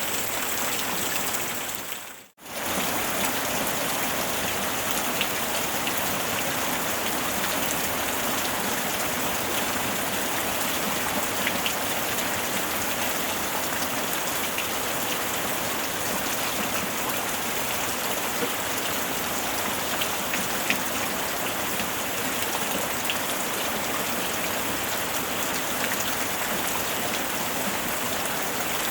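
Steady rain falling on a surface, an even hiss with scattered individual drop ticks. About two seconds in the sound fades out almost to nothing and returns within half a second, like the join of a looped recording.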